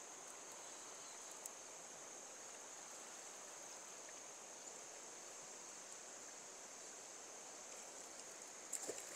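Faint, steady rush of river water with a constant high-pitched insect drone over it, and a few light clicks near the end.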